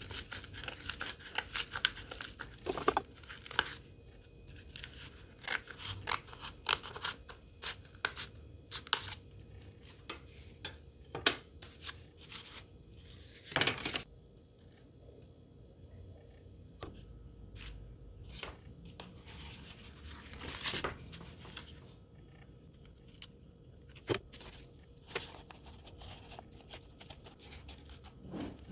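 Scissors snipping through corrugated cardboard: a quick run of short crisp cuts, then sparser clicks and rustles as the cardboard is handled.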